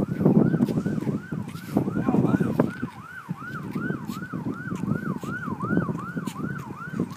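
Siren sounding in a fast yelp: a high tone that jumps up and sweeps down about three times a second, keeping a steady pace. Low rumbling noise comes and goes underneath.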